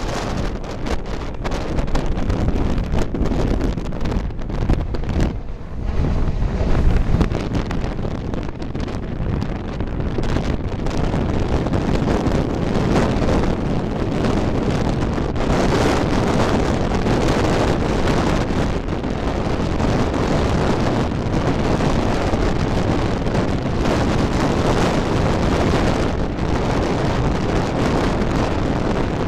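Steady roar of a Boeing 737-900's CFM56-7B turbofans climbing away at go-around thrust, with wind buffeting the microphone, the gusts heaviest in the first several seconds.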